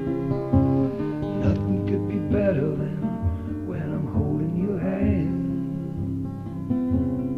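A song with acoustic guitar, a melody line bending in pitch over the steady chords through the middle.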